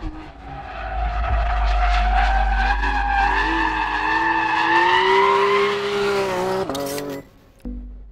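Porsche 911 GT3's naturally aspirated 4.0-litre flat-six revving hard under load, its pitch climbing steadily for several seconds, with tyres squealing as the car slides through a corner. About seven seconds in the engine note cuts off abruptly and drops to a lower, quieter tone.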